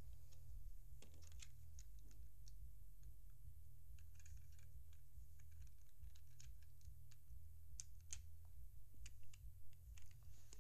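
Scattered light plastic clicks and taps of Lego bricks being handled and pressed together, over a steady low hum.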